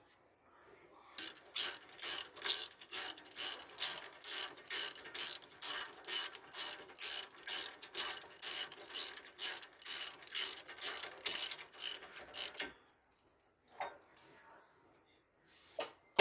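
Hand ratchet wrench clicking in a steady run, about three clicks a second, as the rear wheel hub assembly is tightened down; it stops about three-quarters of the way through, followed by a couple of faint knocks.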